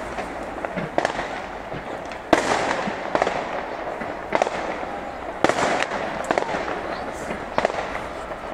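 New Year fireworks display: aerial shells bursting in a run of sharp bangs, about one a second, each trailing off in a fading echo.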